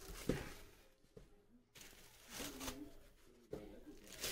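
Faint handling noise as the soundbar is picked up and moved: a light knock shortly after the start, faint rustling, and another knock near the end.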